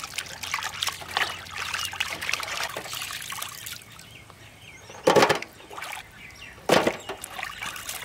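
Hands swishing and rubbing small fish in a tub of water, with light splashing and dripping. About five seconds in come two loud, short wet thuds a second and a half apart, as handfuls of washed fish are dropped into an empty aluminium tub.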